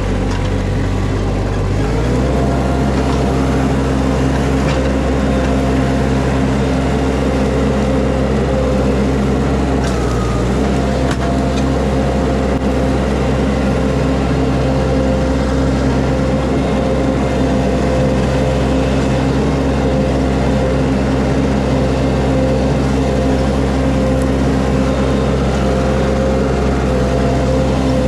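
Mini skid steer engine running steadily under load, its speed stepping up about two seconds in and then holding.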